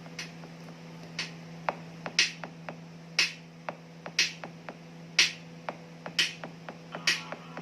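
A song's opening beat played through a OnePlus Nord CE 3 Lite 5G phone's loudspeaker: sharp snap-like hits about once a second, lighter ticks between them, over a steady low hum.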